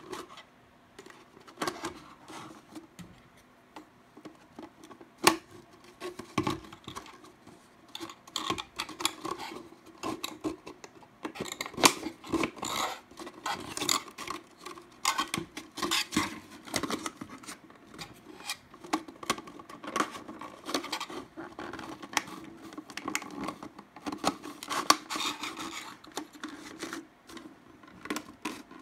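A thin clear plastic bottle being handled and worked with wooden skewers: irregular crinkling and scraping of the plastic with many small clicks, and a few sharp, louder snaps.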